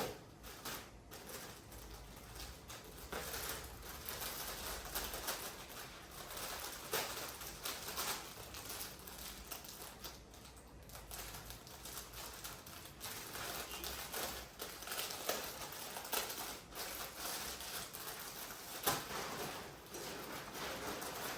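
Irregular rustling and small clicks of plastic packaging and clothing being handled and unpacked.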